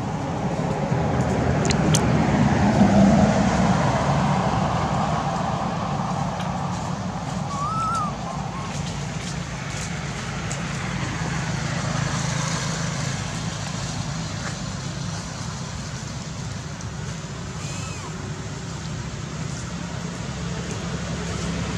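A motor vehicle drives past close by, getting louder to a peak about three seconds in while its pitch slides down, over a steady drone of engine traffic. A brief high chirp comes through about eight seconds in.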